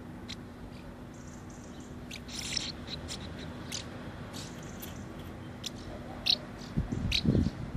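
House martins calling at the nest: short, sharp high chirps every second or so, with a quick twittering burst about two and a half seconds in. Low muffled thumps on the microphone begin near the end.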